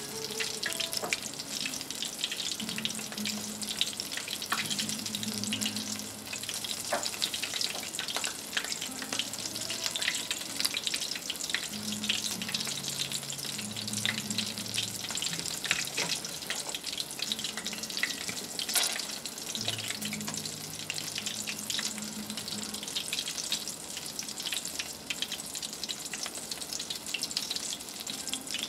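Hot oil sizzling and crackling steadily with many small pops as a battered, guacamole-coated chicken piece deep-fries in a pot.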